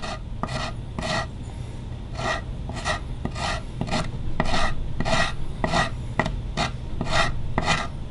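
Japanese Iwasaki curved half-round file pulled across a carved hard-maple guitar top in short rasping strokes, about two a second, cleaning up the marks left by the plane.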